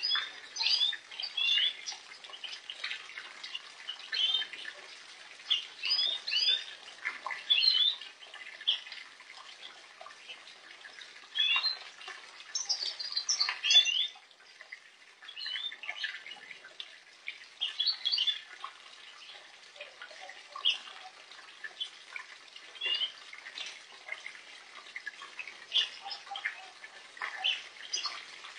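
A flock of European goldfinches twittering with many short, bright calls, over light splashing as the birds bathe in shallow water.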